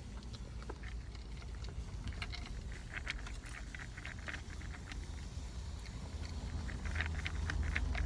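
Someone chewing peanuts taken from a glass of Pepsi: scattered, irregular crunches and mouth clicks over a steady low hum.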